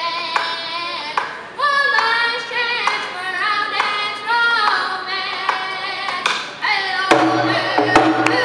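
A boy singing a hand drum song in a high voice, beating a steady rhythm on a hide hand drum as he sings. Near the end the sound grows louder and fuller.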